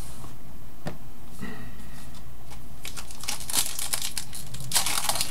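Foil wrapper of a trading card pack crinkling as it is handled and opened, a dense crackle starting about three seconds in, after a light click or two.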